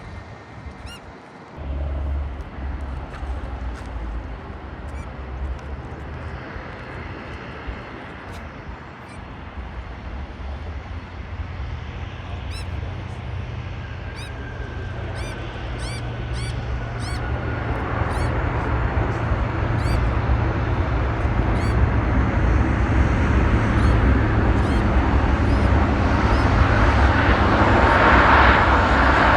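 Jet airliner's engines growing steadily louder over the second half as the aircraft comes closer, loudest near the end, over a low rumble of wind on the microphone.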